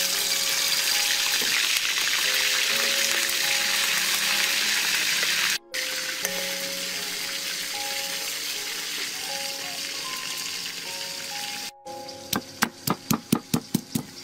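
Stingray pieces deep-frying in hot oil in a wok: a dense, loud sizzle that drops to a quieter sizzle after a break about halfway through. Near the end, a wooden pestle pounds garlic in a mortar, about four sharp strikes a second. Background music plays throughout.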